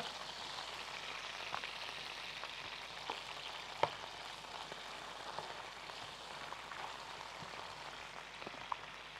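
Pieces of liver sizzling steadily in hot oil in a pan over high heat, with a few sharp clicks. The loudest click comes about four seconds in.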